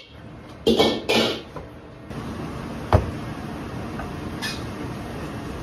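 Kitchen clatter: two short rattling sounds about a second in and a single sharp knock just before three seconds, over a steady background hum that starts about two seconds in.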